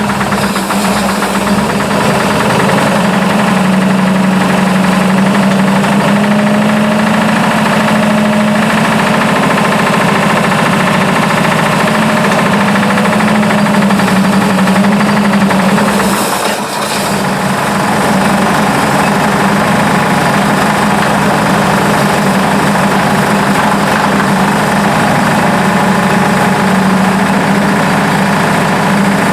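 1955 Buick 322 Nailhead V8 running steadily with a knock, which the owner can't place as lifter knock or rod knock. The level dips briefly about two thirds of the way through.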